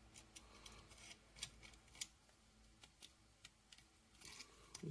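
Faint, irregular clicks and taps of hard plastic action-figure parts being handled and pressed into their tabs by hand.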